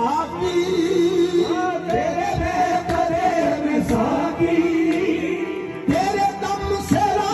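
Sufi qawwali music: singing that holds long, wavering notes, with occasional drum strokes underneath.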